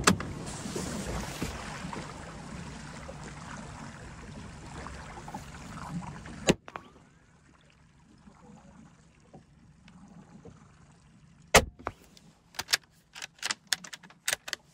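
Small open boat on calm water: a rushing of wind and water that stops abruptly after a sharp click about six seconds in. Then faint water trickling against the hull, with a run of sharp knocks near the end.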